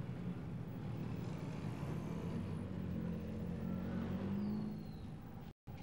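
Road traffic: a motor vehicle's engine running, growing a little louder about four seconds in and then fading, before the sound cuts out for a moment near the end.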